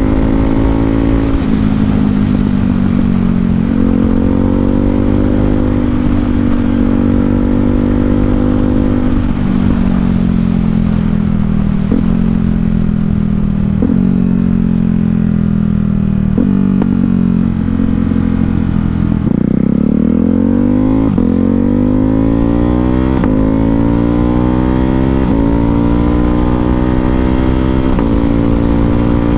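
Ducati Hypermotard 698 Mono's single-cylinder engine through an Austin Racing slip-on exhaust, ridden on the road. The engine note sinks as the bike slows, with a few short sharp cracks along the way, then the bike accelerates hard about two-thirds in, the pitch climbing steeply.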